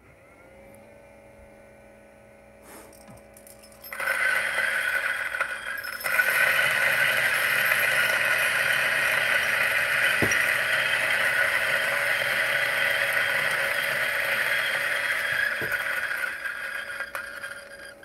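Lagom P64 flat-burr coffee grinder at its top speed setting: the motor spins up with a faint rising whine, then about four seconds in the beans reach the burrs and a loud, steady grinding sets in. The grinding grows louder about six seconds in and thins out near the end as the last beans go through.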